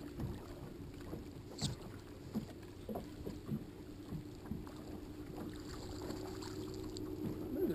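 An electric trolling motor on the boat hums steadily, slowly growing louder from a few seconds in, with scattered light knocks and one sharp click about one and a half seconds in.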